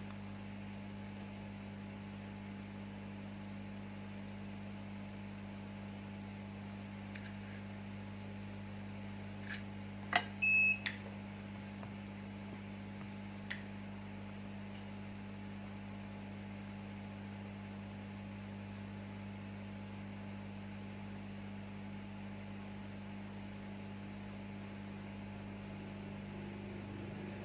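Steady electrical mains hum from repair-bench equipment. About ten seconds in there are a couple of light clicks, then a short high electronic beep, and another click a few seconds later.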